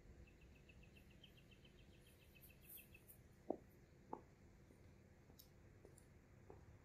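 Near silence with a faint bird trill, a rapid run of high, evenly spaced notes lasting about two and a half seconds, then two soft clicks about half a second apart.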